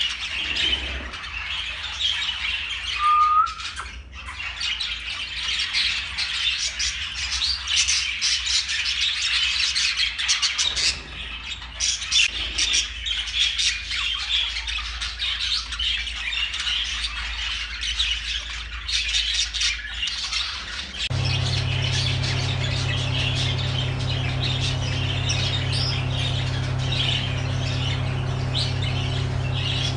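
Exhibition budgerigars chattering and warbling, a dense run of chirps and squawks. About 21 seconds in, a steady low hum joins underneath.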